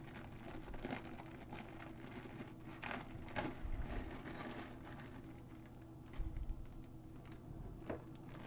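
A plastic hardware bag being opened and the small faucet parts inside handled: irregular crinkling and light clicks, over a steady low hum.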